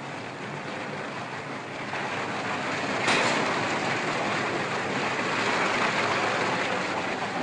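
Steady, noisy machinery sound of a Bessemer converter plant, with no pitched tone. It gets suddenly louder about three seconds in and stays up from then on.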